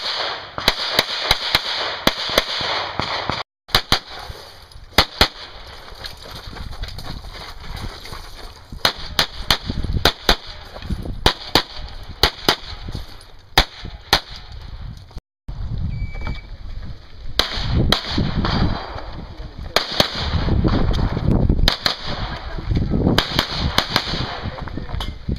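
Smith & Wesson M&P 9L 9mm pistol firing fast strings of shots, often in quick pairs, with short pauses between strings as the shooter moves between positions. A short electronic shot-timer beep sounds a little past the middle, and the shooting starts again soon after.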